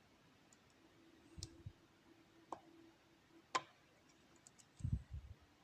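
Lock being picked: a few sharp metallic clicks and ticks of the pick and tension tool on the lock's pins, the loudest about three and a half seconds in, then a couple of dull low knocks as the lock is handled near the end.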